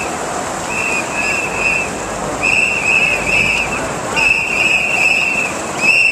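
Whistles blown in short, sharp blasts, in quick runs of two to four, over the steady noise of a large crowd.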